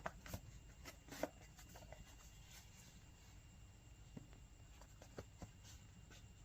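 Faint, scattered light clicks and taps of small items and packaging being handled, with the loudest couple of clicks about a second in and a few more near the end.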